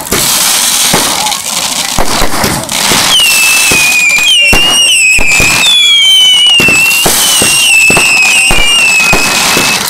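Fireworks going off in quick succession: bangs and crackling throughout. From about three seconds in, a string of shrill whistles, each falling a little in pitch, comes from whistling shells rising.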